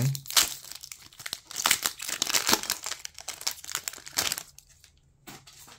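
Foil wrapper of a Pokémon booster pack crinkling and tearing as it is ripped open by hand. The crackling dies down about four and a half seconds in.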